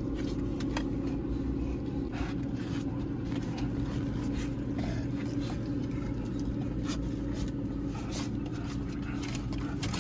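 Steady low hum inside a car's cabin, with scattered light clicks and rustles close to the microphone.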